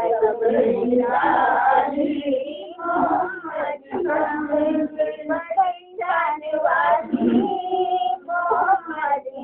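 A high voice singing a naat, an Urdu devotional song in praise of the Prophet, with long held, wavering notes.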